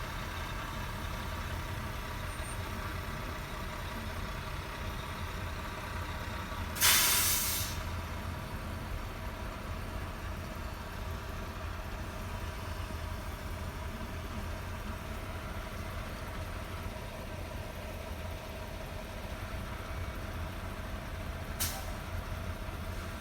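A heavy diesel vehicle idling steadily, with a loud burst of air-brake hiss about seven seconds in that dies away over a second, and a shorter, fainter air hiss near the end.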